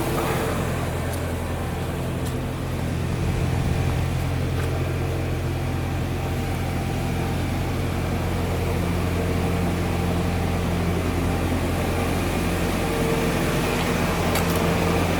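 A car engine running steadily, a low, even hum with no change in pitch.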